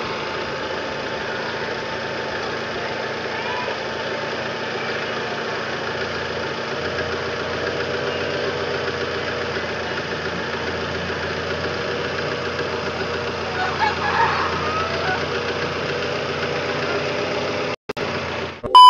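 Honda Civic ESi's 16-valve four-cylinder engine idling steadily after a head gasket replacement and block and head resurfacing. A loud steady tone cuts in abruptly at the very end.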